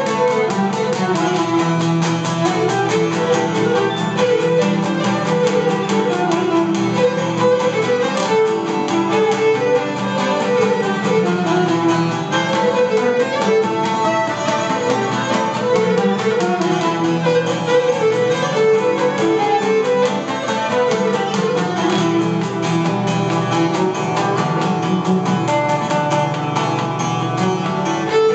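Cretan lyra and laouto playing an instrumental tune together: the bowed lyra carries the melody over the plucked laouto, with no singing.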